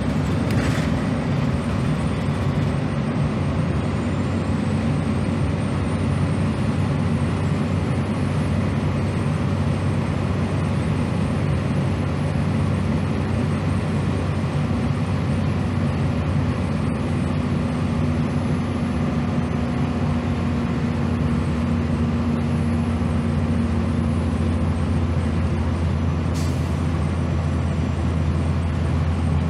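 Interior of a 2001 Gillig Phantom transit bus cruising at highway speed: its Cummins ISM diesel engine and Allison B400R transmission running steadily under a deep hum, with constant road and tyre noise. A faint high whine rises over the first several seconds and then holds.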